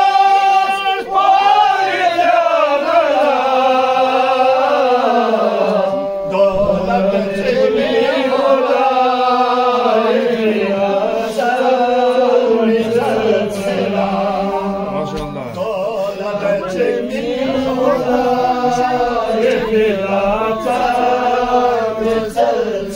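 A group of men chanting a devotional Purgi qasida together, in long, gliding melodic phrases.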